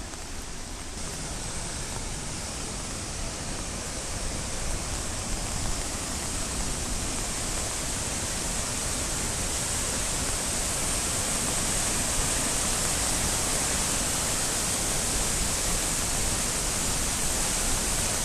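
Krimml Waterfalls: a huge volume of water falling fast, a dense steady rush that grows gradually louder.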